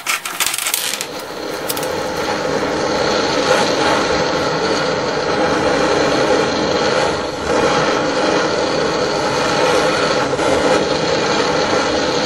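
A few hammer strikes on metal in the first second, then a portable gas burner on a cartridge runs with a steady hiss as a cutting disc is heated in its flame.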